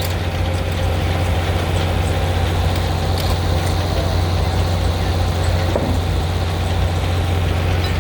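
Steam traction engine and belt-driven Frick sawmill running free between cuts, a steady low drone with no rise or fall.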